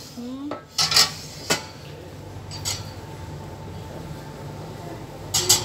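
Dishes clinking against a metal wire dish drying rack as they are handled: several sharp clinks, with a louder double clink near the end, over a steady low hum.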